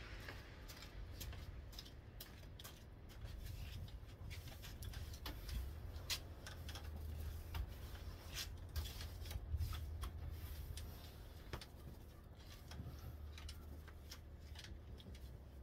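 Snow brush sweeping and scraping snow off a pickup truck's hood, in short irregular strokes over a steady low rumble.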